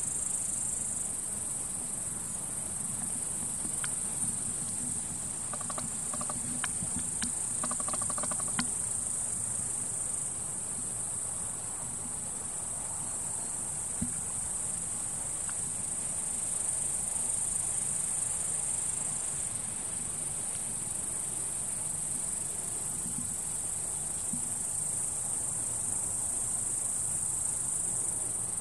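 Steady, high-pitched insect chorus: a continuous shrill trill with no break. A few faint ticks and short chirps come in about six to nine seconds in.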